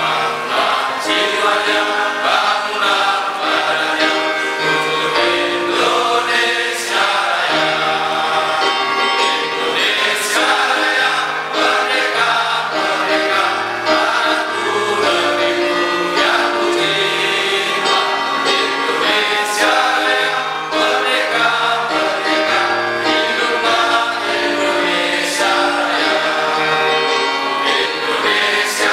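Background music with a choir singing over sustained instrumental chords.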